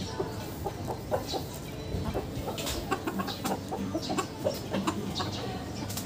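A flock of Silkie chickens clucking, with many short calls overlapping.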